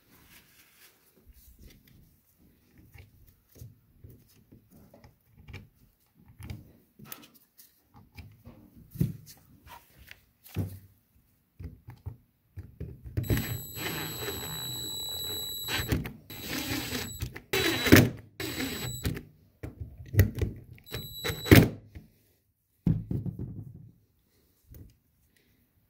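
Small clicks and knocks as the valve parts and screws are handled on a metal bench. Then, from about halfway through, a cordless drill/driver whines in several short spurts as it runs in the screws that hold the cover of a Haldex tractor protection valve, with a last couple of knocks near the end.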